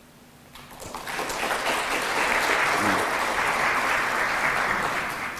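Audience applauding, starting about half a second in, swelling quickly and then holding steady.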